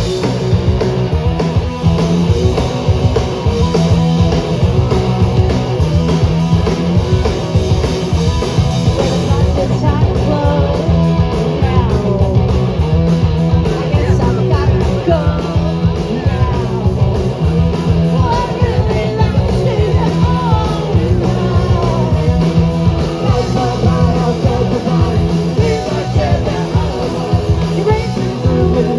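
Punk rock band playing live over the stage PA: drums, electric guitar and bass, with a woman singing lead from about ten seconds in.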